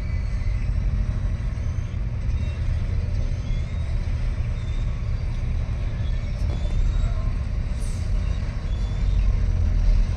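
Steady low rumble of heavy diesel machinery working under load: a Kobelco SK220 crawler excavator pushing against a stuck, loaded truck, with a wheel loader running close by.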